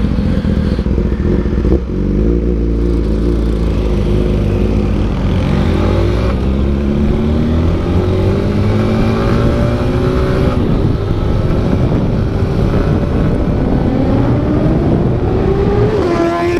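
Motorcycle engine heard from the rider's seat, accelerating up through the gears: the pitch climbs steadily in each gear and drops back at upshifts about 2, 6 and 10 seconds in, with another drop near the end.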